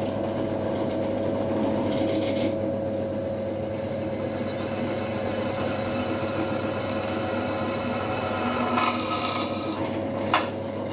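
Pillar drill press running steadily as a twist bit drills through a steel plate, the motor's hum mixed with the scrape of the bit cutting metal. A couple of sharp clicks sound near the end.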